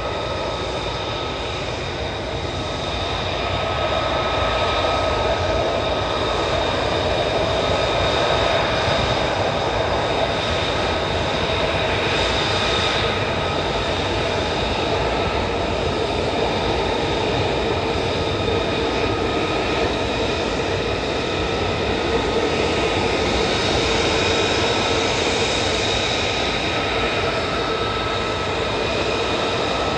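F-35 fighter's Pratt & Whitney F135 jet engine running at taxi power: a steady whine with several high tones over a constant rush, getting a little louder about four seconds in.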